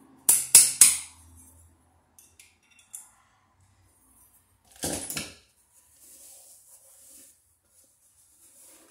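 Screwdriver striking and prying out the knockout of a steel electrical back plate: three sharp metal clinks in quick succession, a few faint ticks, then another metallic clatter about five seconds in.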